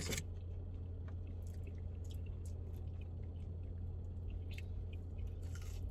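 Faint close-up chewing of a mouthful of food, with small wet clicks and squishes, over a steady low hum.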